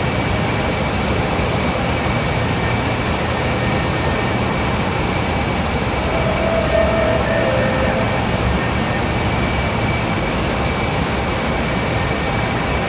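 Diaper production line machinery running on the factory floor: a loud, steady mechanical noise with high-pitched whining tones, and a short extra tone a little past halfway.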